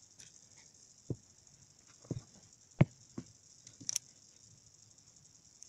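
Scattered light clicks and taps of hard plastic Bakugan toy pieces being handled and set down, five or so separate ones, the loudest about halfway through, over a faint steady hiss.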